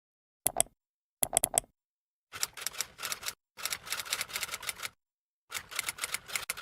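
Typing sound effect: rapid clicks of keys struck in about five bursts, short ones first and then longer runs, with brief pauses in between.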